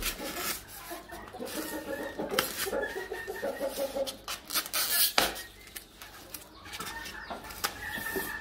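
Chickens clucking while scissors cut and scrape through the tape seal of a styrofoam box, with a few sharp scrapes and rubs of the polystyrene.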